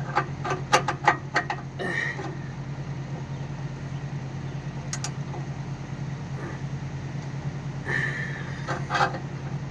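A steady low mechanical hum runs underneath. Over it come several sharp metallic clicks and taps in the first second or so, and a few more later, from a wrench and the O2 sensor being worked into a non-fouler spacer on the exhaust pipe.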